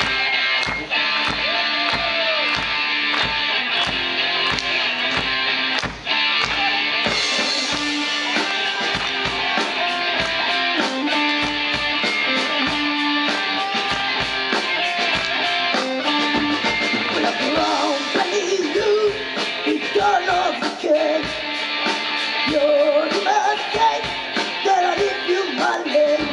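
Rock band playing live: electric guitar chords over a steady drum beat of about two strokes a second, with cymbals coming in about seven seconds in and a wavering melody line joining after about eighteen seconds.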